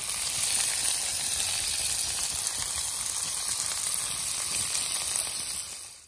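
Kilpatrick oysters topped with diced bacon and Worcestershire sauce sizzling as they cook: a steady frying sizzle that fades out near the end.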